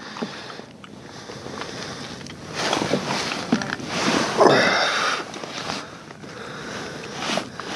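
A person breathing and sniffing close to the microphone, louder in two stretches about three and about four and a half seconds in.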